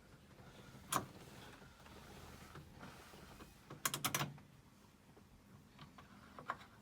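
Clicks from a newly fitted headlight switch under a 1964 Ford Galaxie's dash as it is worked on: one sharp click about a second in, a quick run of several clicks around four seconds in, and a few fainter ones near the end.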